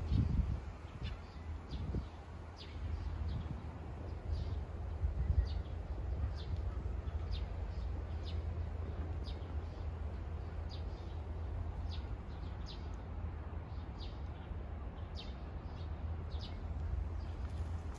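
Small birds chirping: short, high calls repeated one or two a second over a steady low rumble.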